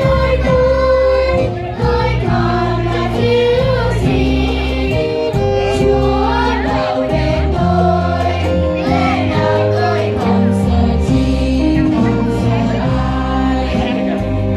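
Children's choir singing a Vietnamese Catholic hymn, with instrumental accompaniment holding long, steady bass notes under the voices.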